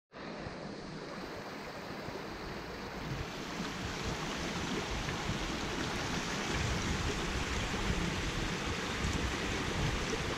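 Small brook running over a shallow stony riffle: a steady rush of flowing water that grows gradually louder.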